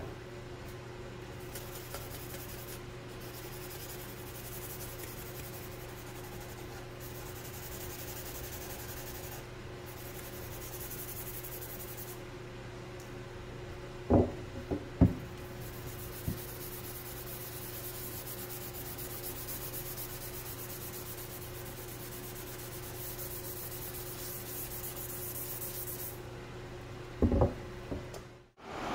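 Gloved hands rubbing and wiping painted plastic parts, a soft hiss that comes and goes over a steady low hum. A few light knocks as the parts are handled, about halfway through and again near the end.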